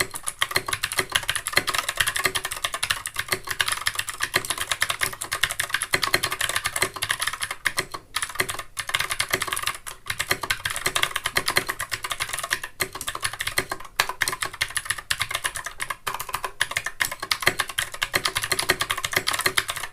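Fast, continuous typing on an Anne Pro 2 60% mechanical keyboard fitted with clicky blue Gateron switches: a dense run of sharp key clicks with a few brief pauses.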